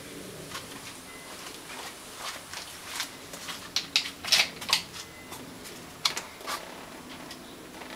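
Scattered clicks and rustling handling noise, loudest in a cluster about four to five seconds in and again around six seconds in; no engine is running yet.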